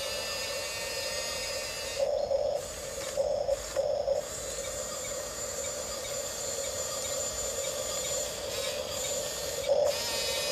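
Electric drive motors and gearboxes of a Huina 1554 1:14-scale radio-controlled bulldozer whining steadily. A louder buzz comes in briefly three times between about two and four seconds in, and again near the end.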